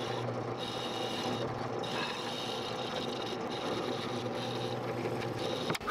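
Drill press running with a Forstner bit boring a shallow hole into a small carved wooden lure piece: a steady motor hum under the scraping of the bit cutting the wood, easing off briefly a few times.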